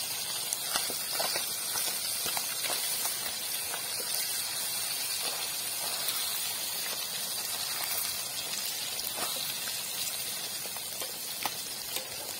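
Fish sizzling as it fries in hot coconut oil in an aluminium pan, a steady hiss with scattered small clicks and taps from spitting oil and the spatula against the pan.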